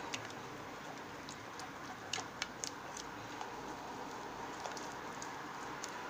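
Scattered light clicks and taps of a utensil against a pot as a gelatin and coconut-oil mixture is stirred, a few close together about two seconds in, over a steady faint hiss.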